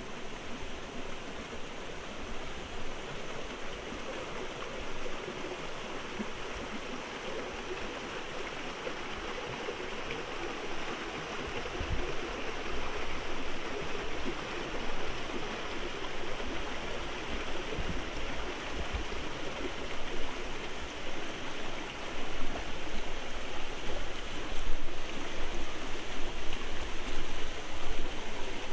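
Shallow rocky forest stream running and splashing over small cascades, a steady rush of water that grows louder about halfway through and again near the end.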